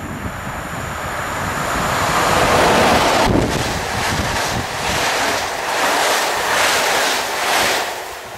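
Ep07 electric locomotive and its passenger coaches passing close at speed. A rushing noise builds as the locomotive arrives, then the coach wheels clatter at about two beats a second, fading near the end. Wind buffets the microphone.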